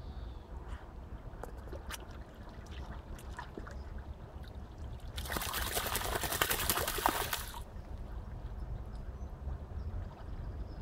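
Black Labrador retriever swimming in a river, its paddling giving small splashes and water sounds, with about two seconds of loud splashing in the middle as it turns and thrashes in the water. A steady low rumble runs underneath.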